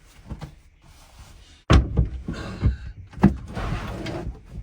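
Pull-out extension bed of a three-wheeled camper being slid shut: scraping and sliding with two sharp knocks, about one and a half seconds apart, as it is pushed home.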